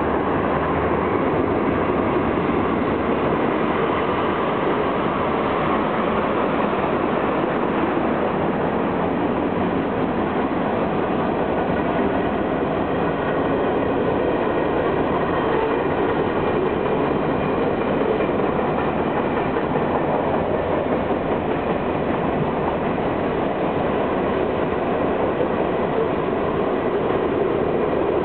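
Freight cars of a long mixed freight train rolling steadily past, wheels clattering over the rail joints in an even rumble.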